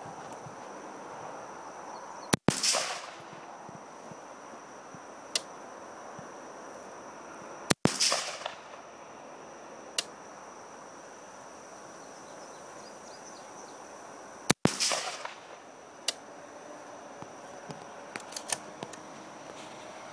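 Three rifle shots from an AR-15 carbine with a 14-inch barrel firing .223 Remington 45-grain hollow-point varmint rounds, spaced about five and seven seconds apart, each followed by a short echo. Faint clicks come between the shots.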